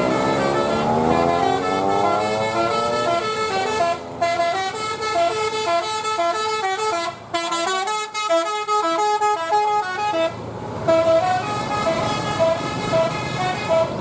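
Bus telolet basuri musical horn playing a tune of short, stepped notes, after a pitched sound that rises steadily over the first three seconds.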